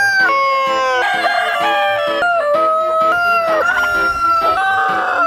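Several roosters crowing one after another, their long calls overlapping. Several of the calls drop in pitch at the end.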